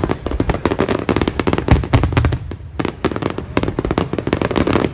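A dense barrage of aerial firework shells bursting: a rapid, unbroken string of sharp reports, many a second, with deeper booms about two seconds in.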